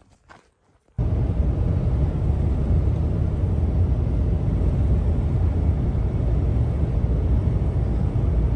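Steady low rumble of a truck driving on a rough dirt road, which cuts in suddenly about a second in after a few faint sounds.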